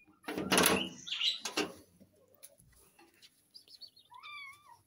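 Two loud, noisy bursts in the first two seconds, then a kitten's thin, high-pitched, wavering mew near the end.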